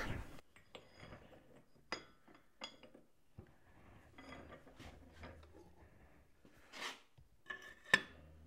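Metal parts being handled at a bench vise: light clinks and taps as a steel Morse taper sleeve is set in the vise jaws, a short scrape, then one sharp metal clack near the end as a metal part is set down onto it.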